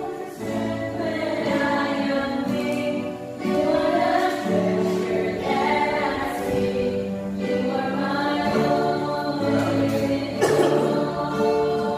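A group of voices singing a slow song in long held notes, with music underneath.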